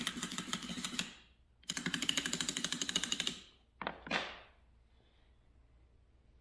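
Two bursts of rapid, even clattering, each about a second and a half long, from a small tool worked against a pattern piece set in a sand mold. Two short, sharper noises follow about four seconds in.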